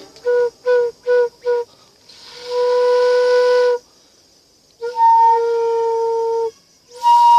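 Bamboo flute (bansuri) played: four short tongued notes on one pitch, then two long held notes at that pitch with audible breath noise. Near the end it jumps an octave higher.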